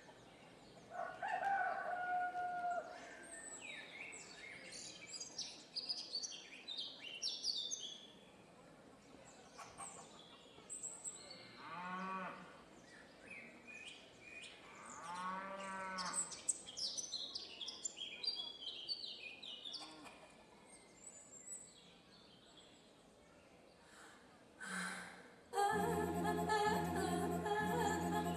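Recorded farmyard sound effects played over a hall's speakers: birds chirping and a cow lowing twice. Music comes in near the end.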